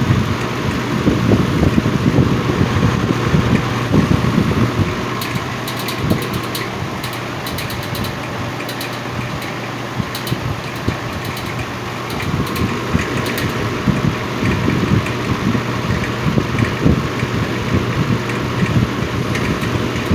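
Vintage Lakewood X2 box fan with a two-speed GE motor running, a steady electric hum with a rattly vibration; the owner puts the vibration down to loose windings in the motor's stator.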